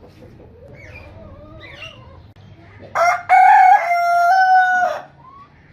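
A rooster crowing once, a loud crow of about two seconds that starts about three seconds in, with a broken start and a long held note. Softer, wavering bird calls come before it.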